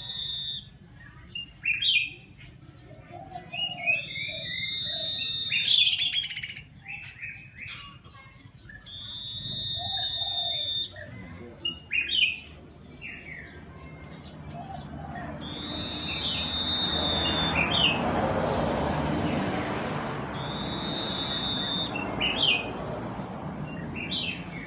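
Common iora singing from a cage: repeated high whistled phrases, several in a row, broken up by quick chirping notes. A broad rushing noise swells and fades in the second half.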